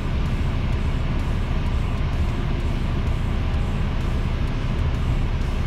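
Class 2 HGV truck's diesel engine running, a steady low rumble.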